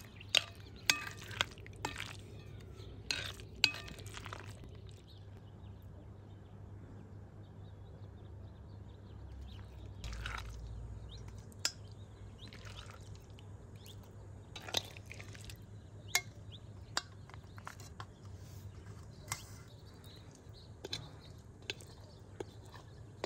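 A metal spoon clinking against bowls and scraping through a thick, wet olive-and-paste mixture, in sparse sharp clinks over a low steady hum; a quick run of sharper clicks comes in the first few seconds.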